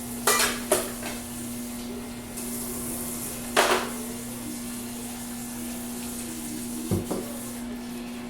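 Dishes and utensils clattering in a few short knocks, about three separate times, over a steady low hum.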